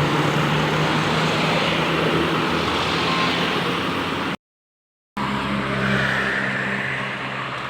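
Tour bus diesel engine running steadily with road and tyre noise. About four and a half seconds in, the sound drops out completely for under a second, then the same engine noise resumes.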